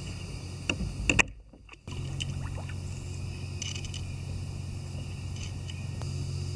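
Small metal parts clicking and clinking as the prop nut and washer are handled while a propeller is fitted to a trolling motor's shaft, over a steady low hum. The sound drops out briefly about a second in.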